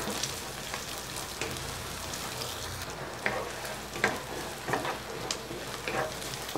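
Diced onions and garlic sizzling in hot oil in a non-stick wok, stirred with a wooden spatula that scrapes and knocks against the pan several times, more often in the second half.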